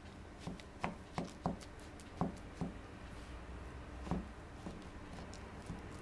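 Dough scraper cutting milk into a crumbly scone dough of flour and butter in a bowl, with about nine short, irregular taps as the blade chops down into the mixture, most of them in the first half.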